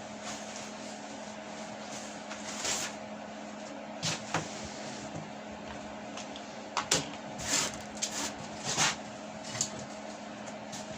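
Scattered light knocks and clicks of metal parts being handled and fitted, several in the second half, over a steady background hum.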